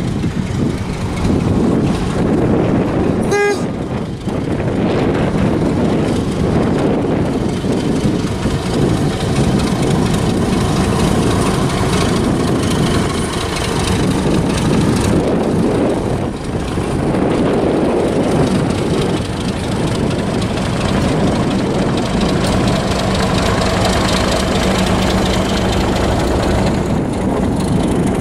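Diesel locomotive passing over a road level crossing, its engine and train running loudly throughout, with one brief horn toot about three seconds in.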